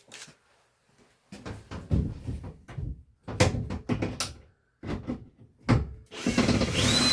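A series of short knocks and scrapes, then from about six seconds in a power drill/driver running for roughly a second with a rising and falling whine, driving out a screw that sits at an angle.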